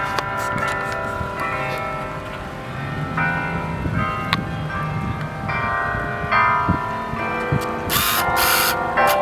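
Church bells ringing, a different note struck about every second, with each note left to ring on. A short burst of hiss cuts across near the end.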